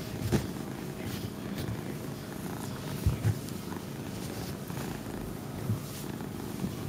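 Chinchilla kitten purring steadily, with a few low thumps.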